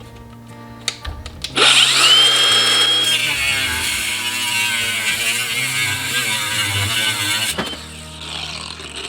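Power cutting tool spinning up with a rising whine about a second and a half in, then cutting through a steering part in the footwell for about six seconds before stopping suddenly. A few light handling clicks come before it.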